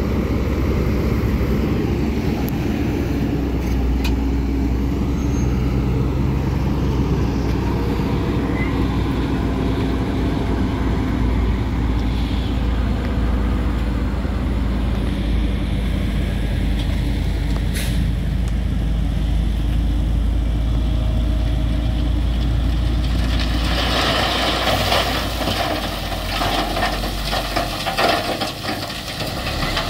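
Diesel engine of heavy road-construction machinery, a grader or vibratory roller, running steadily. About three-quarters of the way through, a dense crackling noise joins in and the low engine note shifts.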